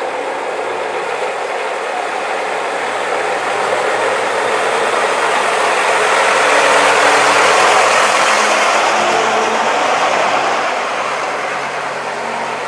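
Engine of a vintage Bristol open-top double-decker bus running as it pulls away and drives past close by. It grows louder to a peak about halfway through, then fades as the bus moves off.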